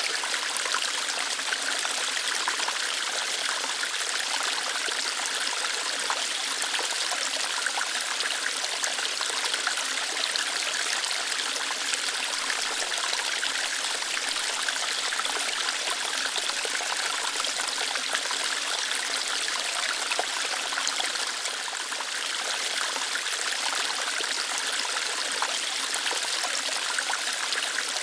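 Water running steadily over rocks, a small waterfall or stream with a steady hiss and light splashing and trickling.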